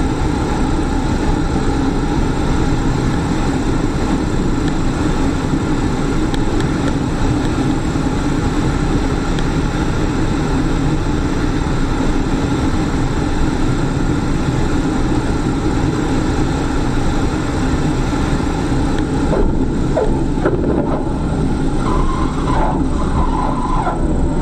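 Steady, loud engine drone with a constant hum. From a few seconds before the end, short wavering higher-pitched sounds come in over it.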